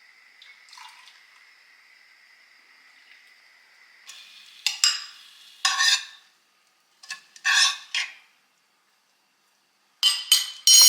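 Kitchen utensils scraping and clinking against dishes in several short separate strokes, like stirring or scooping in a bowl. A faint steady high tone runs under the first few seconds.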